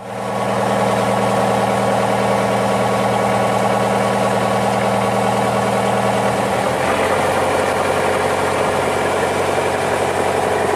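Fishing boat's engine running steadily, with a change in its tone about two-thirds of the way through.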